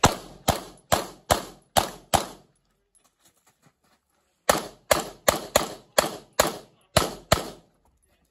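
Semi-automatic pistol firing in rapid strings: six shots about half a second apart, a pause of about two seconds while the shooter moves, then about nine more shots in quick succession.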